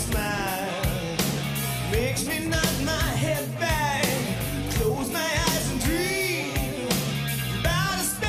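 Glam metal rock song: a lead vocal sung over a full rock band with a driving drum beat.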